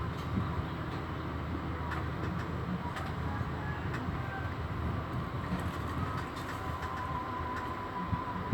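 Steady low rumbling background noise, with a few light clicks and a faint steady high tone in the last couple of seconds.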